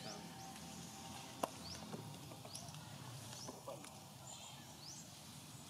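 Faint outdoor background with a short, high rising chirp repeated about once a second. One sharp click comes about a second and a half in.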